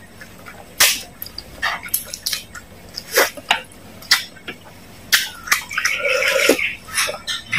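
Close-miked eating of instant noodles: chewing with sharp, wet mouth clicks every half-second or so, then a longer slurp from a spoon about six seconds in.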